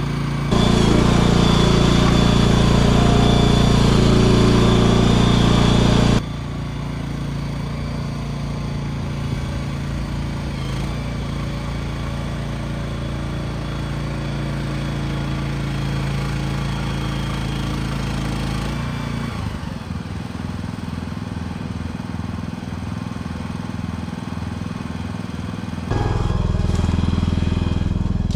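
An engine running steadily, with its level and pitch changing abruptly about half a second in, about six seconds in and near the end.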